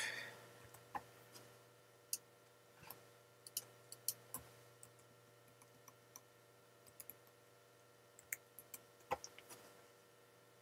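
Faint, scattered clicks of computer keystrokes and mouse clicks, single taps spaced about half a second to a second apart, over a faint steady electrical hum.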